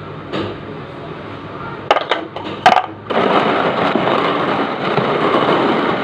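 Dishes and utensils clattering a few times, then a loud steady rushing noise starts about three seconds in.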